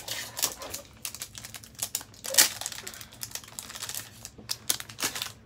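Trading cards and plastic being handled by hand: rustling crinkles with a run of small clicks and snaps, the sharpest about two and a half seconds in.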